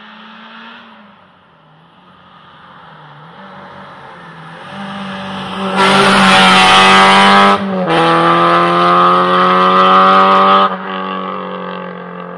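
Rally car engine at full throttle, its note climbing through the gears with a short break at an upshift about halfway through, then cutting back sharply as the driver lifts off near the end.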